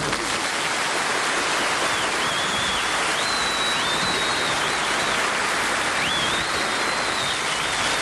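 Studio audience applauding at the end of a song, a steady wash of clapping, with a few high whistles wavering over it from about two seconds in.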